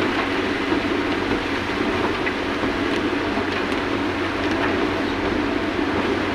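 Steady engine and road drone of a moving vehicle, running evenly with no change in pitch.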